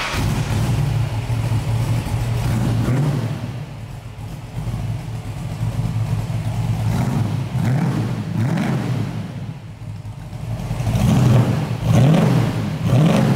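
1971 Ford Mustang Fastback's V8 idling, with several blips of the throttle that send the revs up and back down. The biggest revs come near the end.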